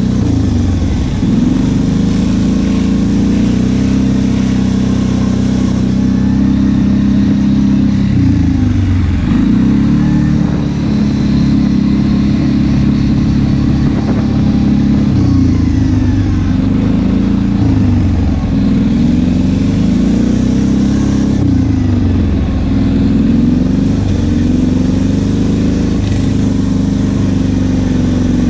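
ATV engine running on a trail ride, its pitch rising and falling again and again as the throttle opens and eases off.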